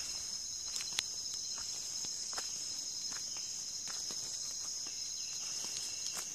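Steady high-pitched chorus of rainforest insects, with a few faint clicks scattered through.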